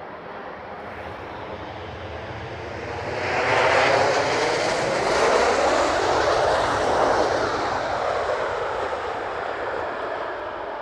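Airbus A350 jet rolling out on the runway just after touchdown, spoilers raised; the jet noise of its Rolls-Royce Trent XWB engines swells about three seconds in, stays loud for several seconds as it passes, then fades.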